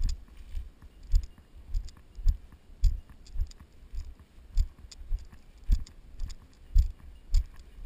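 A hiker's footsteps through dry grass: a steady walking rhythm of dull thumps, a little under two a second, each with a light crunch.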